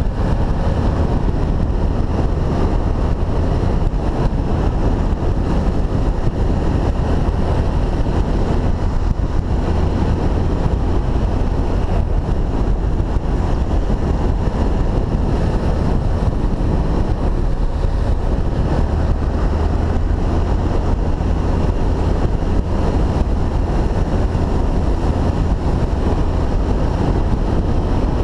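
Honda XRE300 single-cylinder dual-sport motorcycle riding at a steady speed, its engine drone largely buried under wind buffeting on the bike-mounted camera's microphone.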